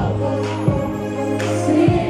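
Live R&B-pop song played loud through a venue PA system: a kick drum beat over a deep bass line, with male singing.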